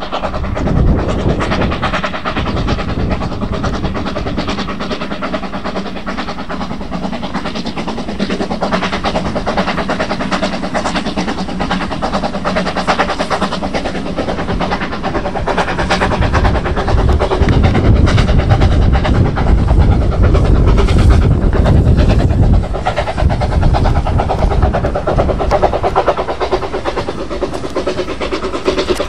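Hudswell Clarke 0-6-0ST saddle tank steam locomotive running with its carriages, wheels clicking steadily over the rail joints. It grows louder with a heavy rumble for a few seconds past the middle, then drops back abruptly.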